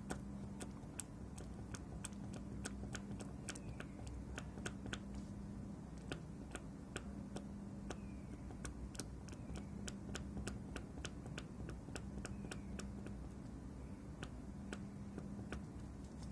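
Irregular small clicks and ticks, several a second, of a blade scraping the end of a PS4 Slim power-button flex ribbon cable to bare its contacts, over a low hum that comes and goes.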